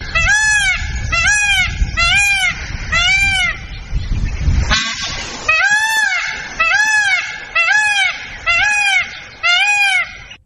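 A bird giving a loud series of ten calls, each a short rise-and-fall note about half a second long, spaced roughly a second apart, with a brief gap and a short rushing noise about halfway through.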